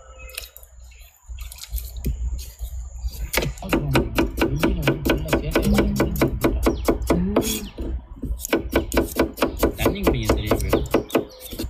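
Kitchen knife chopping potatoes on a cutting board in quick, regular strokes, about five a second, starting a few seconds in.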